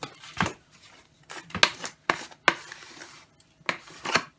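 Salt being shaken out of a container onto peanuts in a slow cooker: several short rattling shakes and taps, with a pause in the middle.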